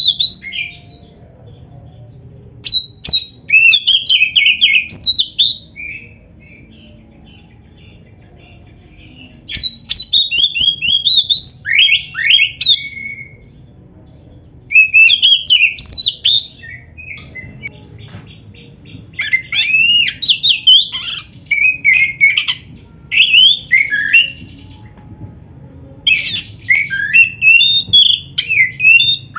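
Oriental magpie-robin (kacer) singing loudly: about six bursts of rapid, varied whistles and sweeping chattering notes, with pauses of a second or two between them. It is a song full of mimicked phrases (isian), with a faint low hum underneath.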